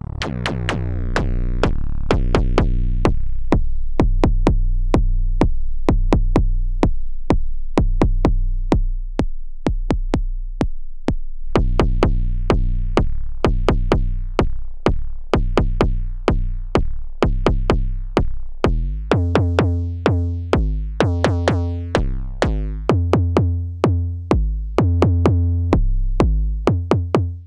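Noise Engineering Tymp Legio Eurorack drum module triggered in a fast, steady rhythm. Each hit is a pitched electronic drum sound that sweeps down in pitch, like a zap or synth kick. Its tone and length change as the decay and wackitude knobs are turned, and from about two-thirds of the way in the notes ring longer with a stronger low tone.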